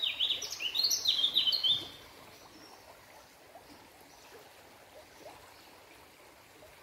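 A songbird singing a quick run of high chirps and short trills, which stops about two seconds in; after that only faint background noise.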